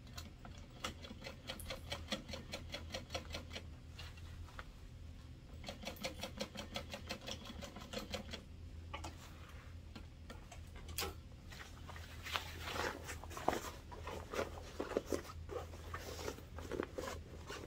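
Domestic sewing machine stitching in two short runs, its needle clicking at an even, rapid rate over a low motor hum, pausing about four seconds in and stopping at about eight and a half seconds, closing the turning gap in the lining. Then irregular clicks and rustling as the sewn fabric is handled and pulled away from the machine.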